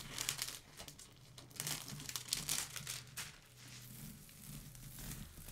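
Clear plastic cover film on a poured-glue diamond painting canvas crinkling as a hand pulls it back and smooths it flat to get the wrinkles out. The crackling comes in irregular bursts, busiest in the first half and softer toward the end.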